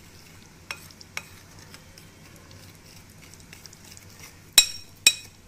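Metal spoon scooping thick curd into a glass mixing bowl, with light taps early on and two sharp clinks of the spoon against the glass about half a second apart near the end.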